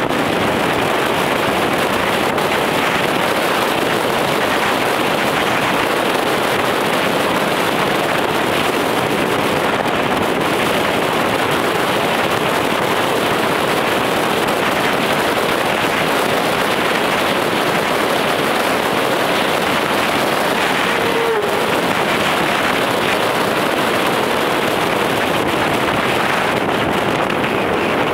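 Steady road and wind noise of a car driving at speed, heard from inside the car.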